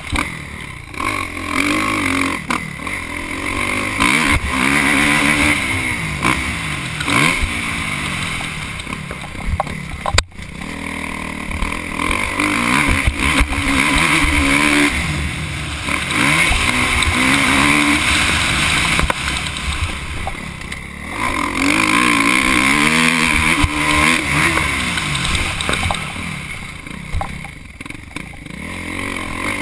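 Kawasaki KX450F single-cylinder four-stroke motocross engine revving up and falling back again and again as the rider works the throttle and gears at speed. The sound drops out for an instant about ten seconds in.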